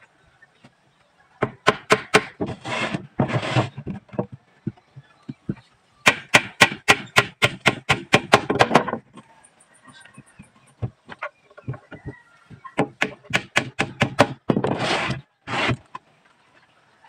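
Hammer driving nails into a plywood box panel, in quick runs of sharp blows of about five a second, with a few short rasping noises in between.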